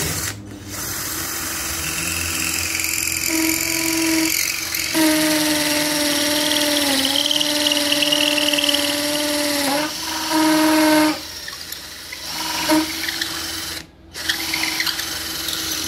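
J.C.K Kawasaki 21V cordless drill spinning a pocket-hole drill bit through a pocket-hole jig into a wooden board. The motor whines in several runs of the trigger: one long run with a brief dip in pitch about seven seconds in, then shorter bursts near the end.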